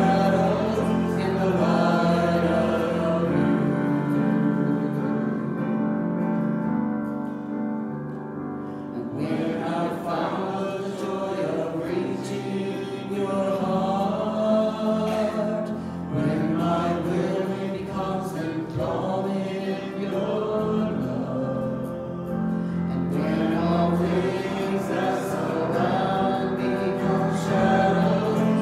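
Gospel-style worship music: a slow song with choir singing over sustained accompaniment, thinning briefly to a softer passage twice.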